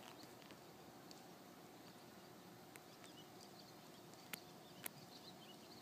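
Near silence: quiet outdoor background with faint scattered bird chirps and a few sharp clicks, the loudest two about four and five seconds in.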